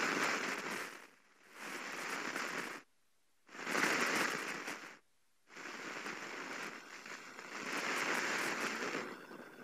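Crackling static hiss on the microphone feed while the lapel microphone is being handled. The hiss drops out abruptly to dead silence twice, for about half a second each time, and fades near the end.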